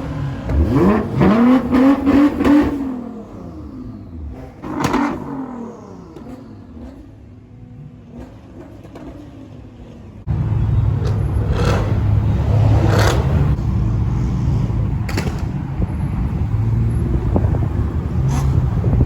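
Car engines revving, their pitch rising and falling, then a quieter stretch with a single sharp knock-like sound. About ten seconds in, a loud, steady low engine drone sets in suddenly, with a few sharp clicks over it.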